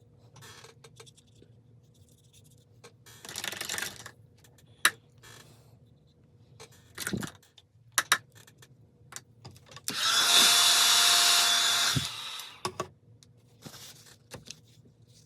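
A small electric tool's motor runs loudly for about two seconds, with a steady whine, after a shorter, quieter burst of noise earlier and scattered clicks and knocks of handling.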